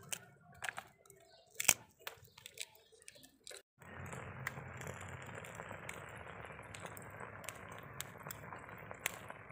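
Dried pasilla chiles crackling and snapping as they are torn apart by hand, in a string of sharp crisp clicks. After a cut about four seconds in, beef steak sizzles steadily in hot oil, with occasional small pops.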